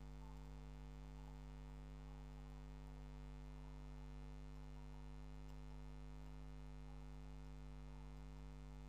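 Steady low electrical mains hum with a ladder of overtones, picked up on the recording line; otherwise quiet.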